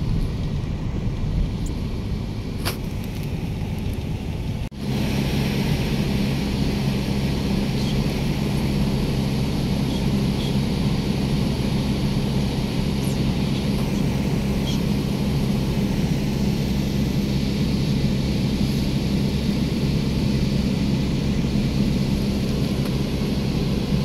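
Rushing outdoor noise, then after a cut about five seconds in, a steady vehicle engine hum with road noise.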